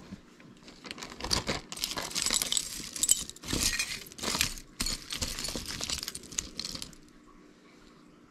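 Costume jewelry clinking and rattling as a hand rummages through a heap of metal earrings, chains and beads, for about six seconds.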